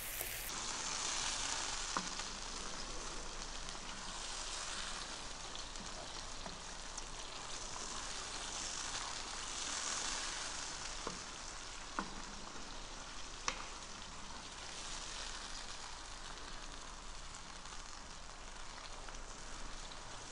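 Tomato, fresh basil, onion and garlic sauce sizzling steadily in a frying pan as it is stirred with a wooden spoon, with a few sharp clicks of the spoon against the pan.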